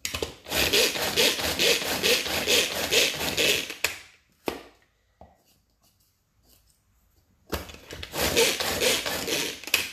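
Hand-pulled Tornado mini chopper spinning its blades through dry shortbread biscuits, grinding them to fine crumbs, with a fast even pulse of about four strokes a second. It comes in two bouts: the first lasts about four seconds, the second starts about three seconds after it stops.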